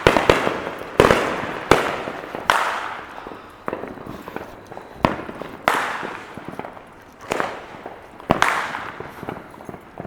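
Fireworks exploding: a dozen or so sharp bangs at uneven intervals, some near-together, each trailing off in echo.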